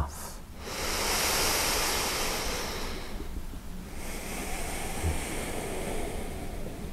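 A person breathing slowly and audibly close to the microphone while holding a yoga lunge with arms raised. There are two long breaths of about two and a half seconds each; the second is a little fainter.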